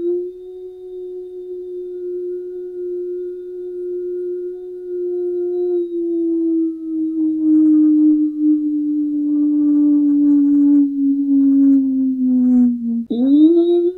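Outdoor tornado warning siren wailing: one long steady tone that sags slowly in pitch, then dips and climbs quickly back up near the end.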